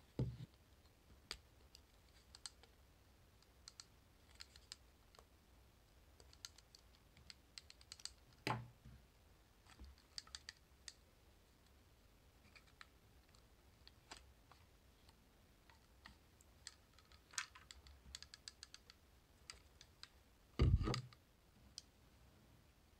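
Scattered small clicks and taps of plastic casing parts and a small screwdriver being handled while a Panasonic Dentacare EW1211 water flosser is taken apart. There are two louder knocks, about a third of the way in and near the end.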